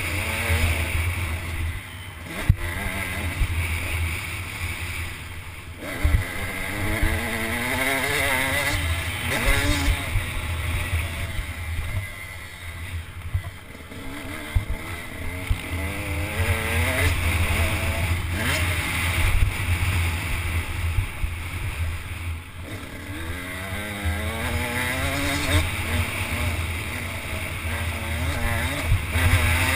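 Dirt bike engine revving up through the gears in several runs and easing off between them, under heavy wind noise on a helmet-mounted microphone.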